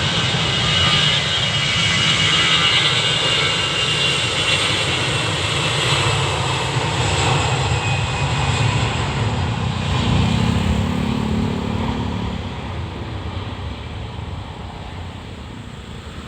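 Citilink airliner's engines at take-off power: a loud, steady rumble with a high whine that sinks slightly in pitch over the first few seconds. It fades over the last few seconds.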